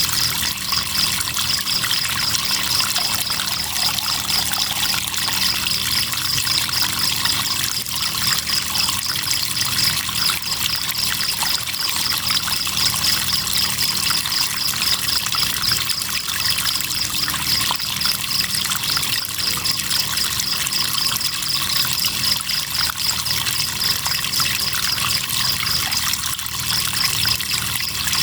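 Crickets chirping in a steady, rapid pulsing trill over the continuous trickle and splash of running river water.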